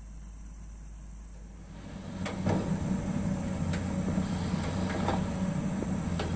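Long-arm excavator's diesel engine running and its tracks and boom working as it crosses floodwater. A steady low hum swells in about two seconds in, with a few scattered metallic clanks.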